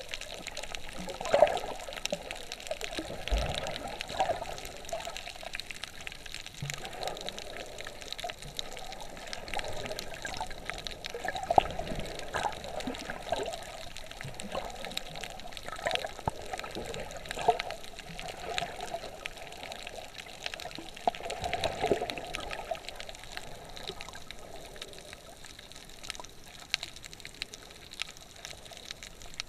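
Water moving around a camera held underwater: a muffled sloshing and swishing, with scattered faint clicks and louder swells every few seconds.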